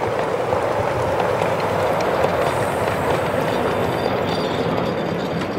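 A 7¼-inch gauge ride-on miniature train, its passenger cars loaded with riders, running past close by: a steady rolling noise of the cars' wheels on the track.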